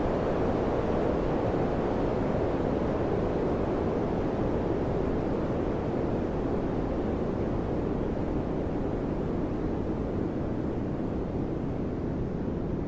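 Cooper & Hunter air conditioner running, its fan blowing a steady rush of air, easing off slightly near the end.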